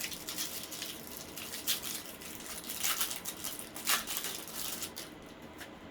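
Plastic wrapper of a Magic: The Gathering booster pack being torn open and crinkled, an irregular crackling rustle with a few sharper crackles about two, three and four seconds in.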